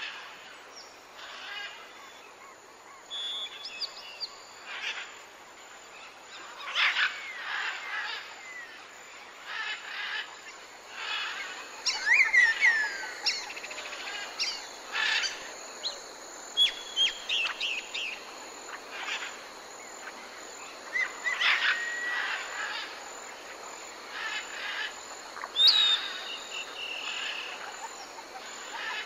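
Several wild birds calling in a natural soundscape: irregular short chirps and whistles, some sliding down in pitch, with a few louder bursts scattered through, over a faint steady high hiss.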